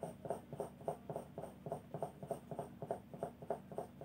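4B graphite pencil scratching across drawing paper in quick, short, even strokes, about four a second, laying in strands of hair.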